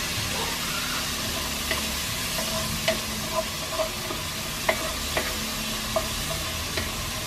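Diced onion sizzling in hot oil in a Lodge cast iron Dutch oven as it is stirred to caramelize, the wooden spoon giving light knocks and scrapes against the pot.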